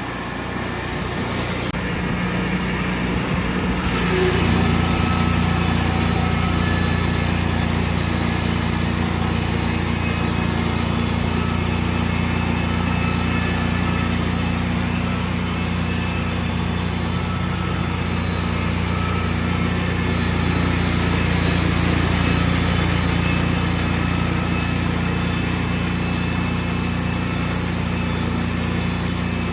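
Wood-Mizer portable sawmill's engine running, throttling up about four seconds in, then holding a steady drone at working speed.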